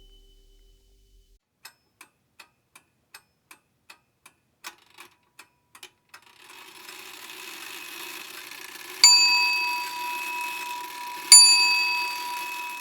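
A clock ticking evenly, about three ticks a second. A steady hiss then comes up, and a clock bell strikes twice a couple of seconds apart, each stroke ringing on and slowly fading.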